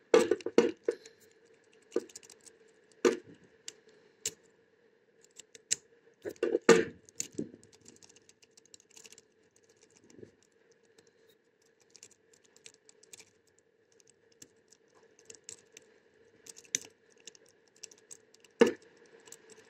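Saw-blade jiggler key rattling and raking in a simple single-sided wafer lock: scattered light metallic clicks and short scraping clusters, with a faint steady hum underneath. The lock does not open.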